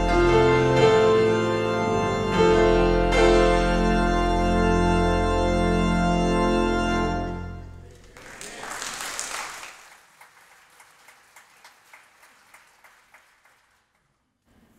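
Church organ playing full sustained chords over a deep pedal bass, changing chord a few times, then holding a final chord that is released about seven seconds in and rings briefly in the hall. A short burst of applause follows, thinning to a few scattered claps.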